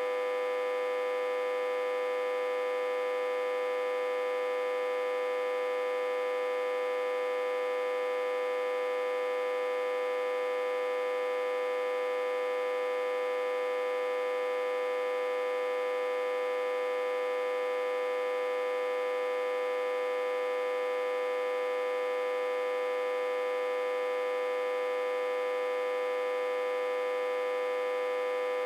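Autotransformer humming, reverse-connected to a step-down transformer with about 60–80 V on its input. A steady, fairly high-pitched electrical hum, rich in overtones and unchanging.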